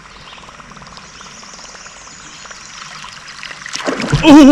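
Whopper Plopper topwater lure being reeled across the river surface, its spinning tail making a faint, steady gurgling trickle. Near the end a smallmouth bass strikes it with a loud, sudden splash, followed at once by a man's excited yell.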